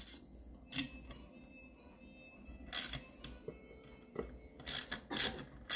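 Scattered metal clicks and taps as a nut driver is worked on the bolts of a gearmotor's steel mounting bracket, with a cluster of clicks about three seconds in and several louder ones around five seconds.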